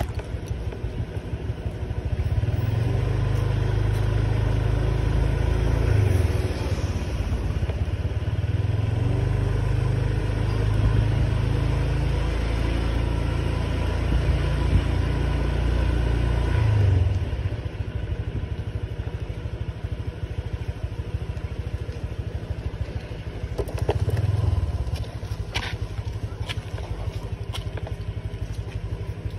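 Small motor scooter engine running under the rider, pulling along steadily with its pitch rising and falling for most of the time, then dropping to a quieter, slower run more than halfway through, with one short burst of throttle a few seconds later.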